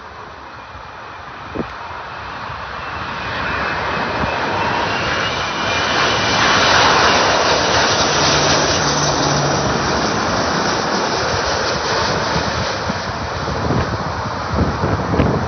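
Airbus A380 on final approach, its four jet engines making a rushing noise with a faint high whine that swells as the airliner passes low overhead, loudest about seven seconds in, then staying loud as it descends toward the runway.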